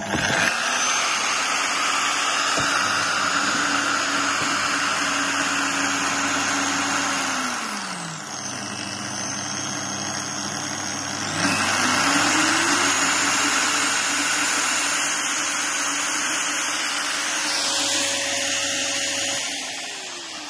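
Crown CT13551-110RSV brush sander (burnishing machine) starting and running unloaded with a steady motor whine. About eight seconds in its speed is turned down and the pitch drops. About three seconds later it is brought back up to full speed. Near the end it is unplugged while running and winds down, the pitch falling steadily.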